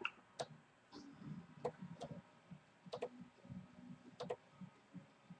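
Faint clicks of a computer mouse: a handful of short single clicks spread about a second apart, with one quick double click about four seconds in.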